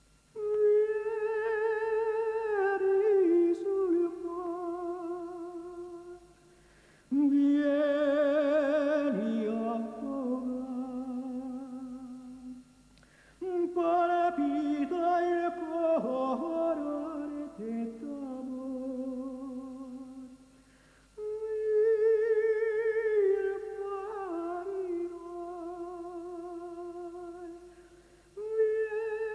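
A solo voice humming or singing a slow, wordless, mournful melody with vibrato. It comes in long phrases of about six seconds that step downward in pitch, with short pauses between them.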